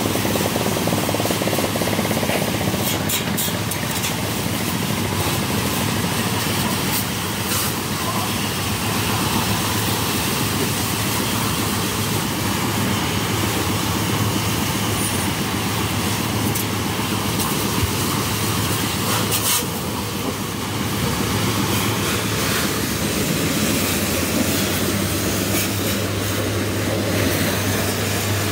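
High-pressure water jet spraying against a tractor's body and tyres, a steady loud hiss, over the constant hum of the washing machinery. The spray falters briefly a few times as the jet moves.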